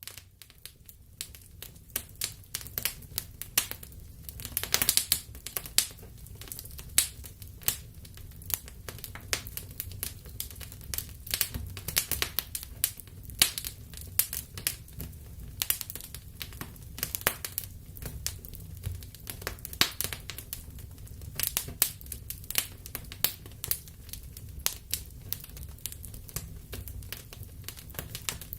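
Wood fire burning in a fireplace: frequent irregular crackles and pops of burning logs over a low steady rumble of the flames.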